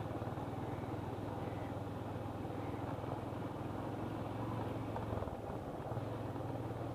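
Motorcycle engine running at steady speed while riding. It eases off briefly about five seconds in, then picks up again.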